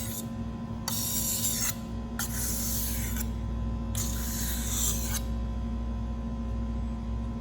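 Chef's knife blade scraping along the wet 1000-grit finishing side of a whetstone in even sharpening strokes: three strokes of about a second each, then only a steady hum for the last couple of seconds.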